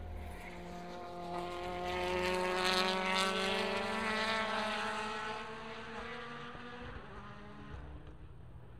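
Chevrolet Cruze WTCC touring car's 1.6-litre turbocharged four-cylinder accelerating through the S-bends. The engine note climbs steadily in pitch, is loudest a couple of seconds in, then fades away as the car pulls off down the track.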